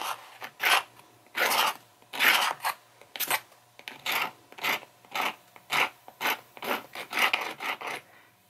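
X-Acto knife blade scraping layers of dried binding glue off a paperback book's spine, in short rasping strokes about two a second.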